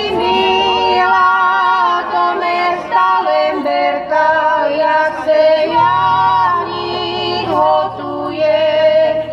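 Live band music played loud in a small room: a high melodic line sliding between held notes over the instruments, with the low bass dropping back for several seconds and coming in again about six seconds in.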